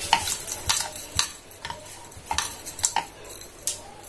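Wooden rolling pin rolling out paratha dough on a round board, with a run of irregular sharp knocks and clicks as the pin and board tap against each other and the counter. The clicks come several a second at first and thin out later.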